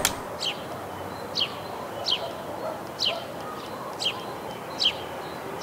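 A bird calling over and over, a short call falling in pitch, six times about once a second, over faint outdoor background noise.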